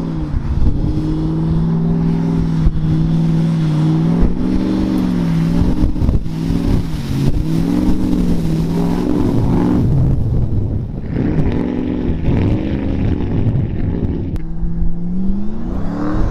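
Lifted pickup truck's engine revving up and down again and again as it drives through deep mud and water, the tyres churning and splashing.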